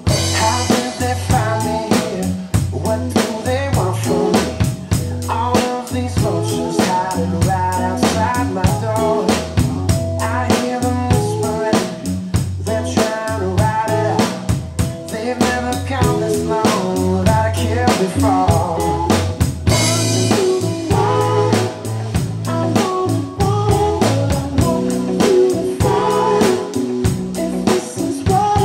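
Yamaha drum kit playing a steady beat with snare and bass drum inside a full band groove, with bass and melodic instrument lines. There are cymbal crashes at the start and again about twenty seconds in.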